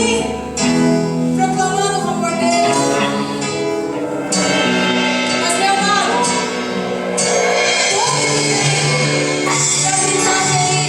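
Worship music: instruments holding chords that change every second or two, with some singing.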